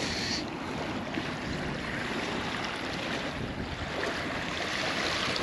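Strong wind blowing and buffeting the microphone, a steady rushing noise.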